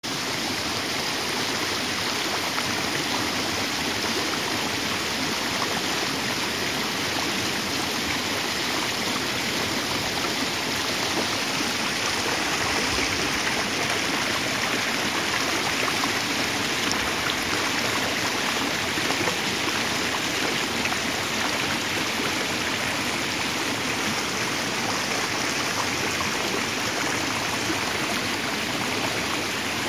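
Water of a small stream rushing steadily over rocks at a low cascade.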